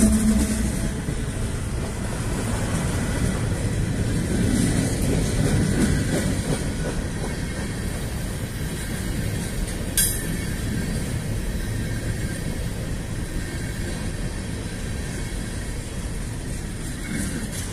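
A train passing close by: the steady rumble of rail cars rolling along the track, with a sharp click about ten seconds in.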